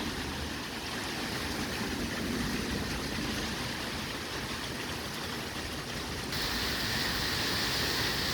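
Steady rush of strong storm wind and heavy rain. It grows louder and hissier about six seconds in.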